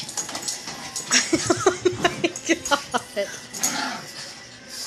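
Pug yapping in a quick run of about ten short, rising yips over about two seconds, starting about a second in, while it plays rough with another animal.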